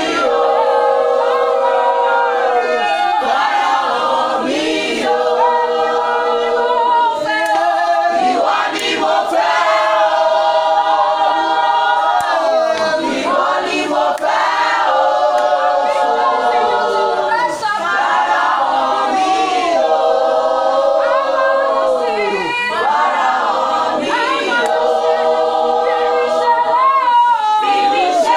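A choir singing a cappella, several voices in harmony holding long notes and sliding between them, with no instruments or beat.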